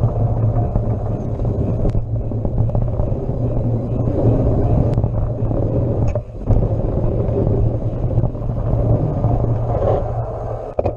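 Mountain bike rolling fast down a dirt trail: a steady rumble of tyres on the ground and wind on the bike-mounted camera's microphone, with small knocks from the rough surface. It dips briefly about six seconds in.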